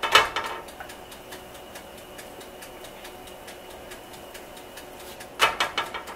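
A tortilla flipped onto a hot comal with a short clatter at the start, then a quiet stretch of faint steady hum and light ticking while it heats. A few handling knocks near the end.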